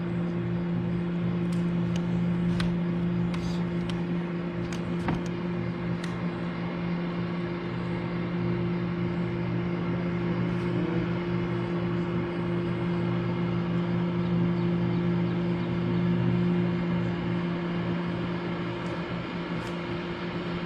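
Boat motor running at a steady speed, a constant low hum that does not change pitch. A few sharp clicks sound in the first several seconds.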